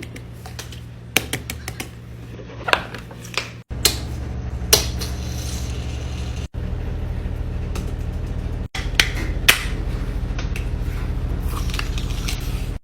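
Sharp clicks and pops from fidget toys being pressed, coming singly and in quick clusters, over a steady low hum.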